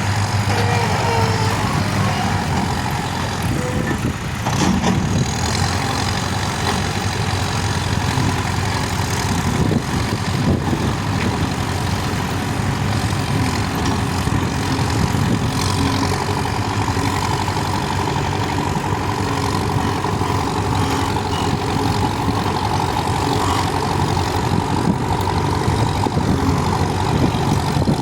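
Diesel engine of a Manitou TLB-740S backhoe loader running steadily while the machine works. A higher steady whine rides over the engine and grows stronger about halfway through.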